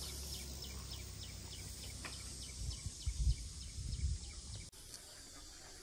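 Rural outdoor ambience: a run of short, high chirps repeating about three times a second over a low rumble. The sound drops quieter about three-quarters of the way through.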